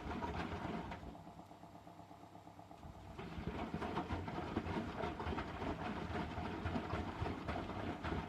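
Eurotech EW 450 washing machine running a rinse/spin phase of its boil-wash programme: the drum motor and drum run with a rattly, fluttering noise, go quieter about a second in, and start up again about two seconds later.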